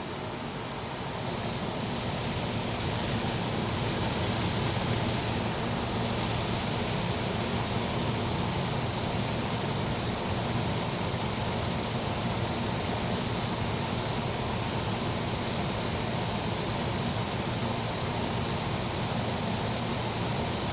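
A 1978-79 GE Sahara 14-pint dehumidifier running steadily: its fan blowing air with a low hum from the Aspera compressor underneath, the unit just started up after sitting unused.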